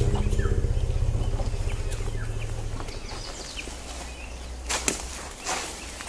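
African elephant giving a deep, pulsing rumble that fades out over about three seconds. Small birds chirp briefly, and a couple of sharp cracks come near the end.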